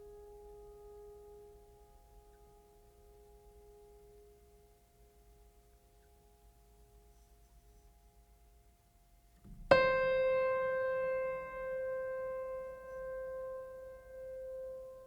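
Soft keyboard music: faint held notes fading away, then, about ten seconds in, a single piano-like note struck sharply that rings on and slowly decays.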